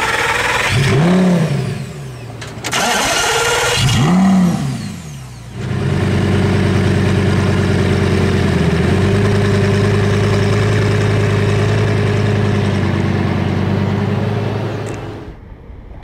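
Lamborghini Gallardo V10 engine blipped twice, the pitch climbing and falling each time, then settling into a steady idle that fades out near the end.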